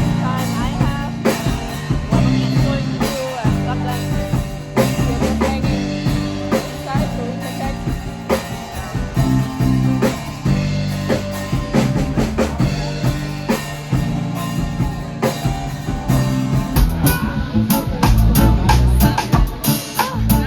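Music with a drum kit and bass playing a steady beat.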